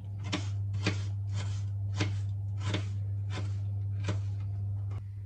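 Kitchen knife dicing an onion on a cutting board: short cuts about two a second, over a steady low hum.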